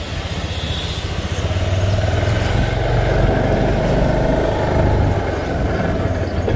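Motor scooter engine running steadily as it rides through a shallow flooded stretch of road and on. It gets a little louder about a second and a half in.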